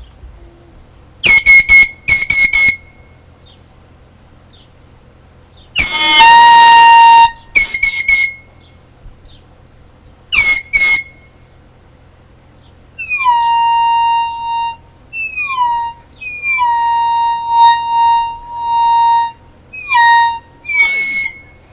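MLG air horn sounding a string of loud blasts. The first half holds short, high-pitched honks and one longer held blast; the second half holds lower blasts that each open with a short downward slide in pitch.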